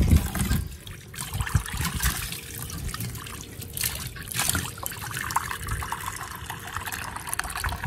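Water running from a plastic tap into a terracotta clay bowl, trickling and splashing as the bowl fills. There are a few dull knocks in the first second or so.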